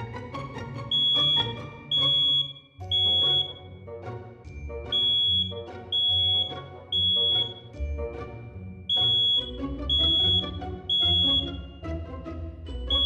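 Smoke alarm sounding: loud, steady high-pitched beeps about half a second long, in groups of three with a short pause between groups, the standard evacuation pattern of a smoke alarm. Background music plays underneath.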